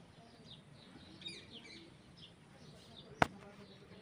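Birds chirping over and over in short, high, falling notes, with a single sharp click a little past three seconds in.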